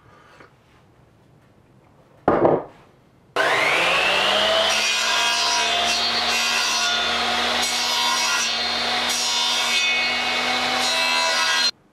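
A short loud knock about two seconds in. An electric power tool then spins up with a rising whine and cuts into raw birch wood, making a loud, steady cutting noise that stops abruptly near the end.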